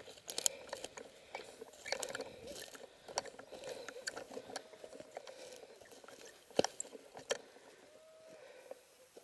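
Footsteps crunching and rustling through dry thistles and scrub, with scattered sharp clicks and a louder knock about six and a half seconds in.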